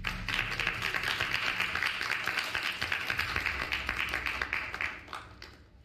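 A small group of people applauding: a steady patter of hand claps that fades out about five seconds in.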